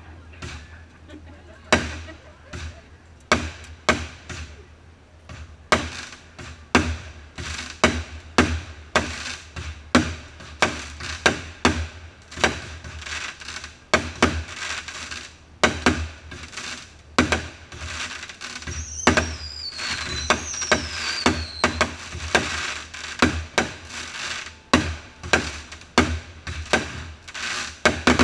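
Aerial fireworks shells launching and bursting, a rapid series of sharp bangs that come closer together in the second half. Two whistles falling in pitch sound about two-thirds of the way through.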